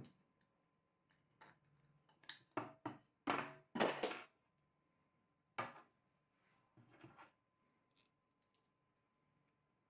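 Small metal bolts, washers and nuts handled and set down on a wooden tabletop: a series of short, separate clinks and knocks, loudest about three to four seconds in.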